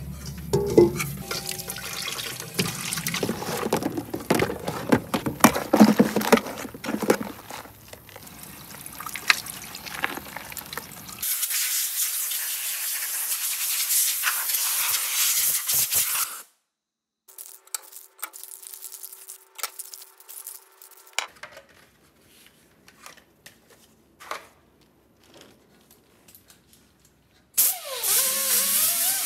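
Water splashing and clattering as a greasy sheet-steel repair panel is washed in a utility sink, then a compressed-air blow gun hissing steadily for about five seconds as the panel is blown dry. After a few quiet seconds of faint taps, a power tool starts up loudly near the end.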